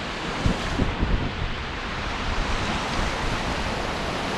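Rushing white water of river rapids around a raft, a steady roar, with wind buffeting the microphone in a few low thuds about a second in.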